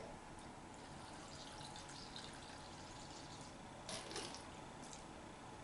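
Faint pouring and dripping of contact lens solution, measured into a tablespoon for the slime mixture, with one short louder sound about four seconds in.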